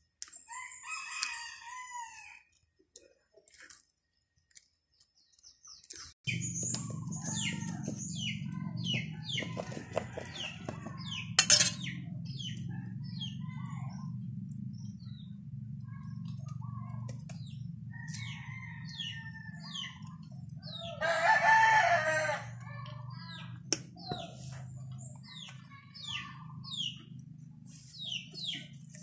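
Rooster crowing, with one loud crow about three-quarters of the way through, among many short bird chirps. A steady low hum starts about six seconds in, and a single sharp knock about eleven seconds in is the loudest moment.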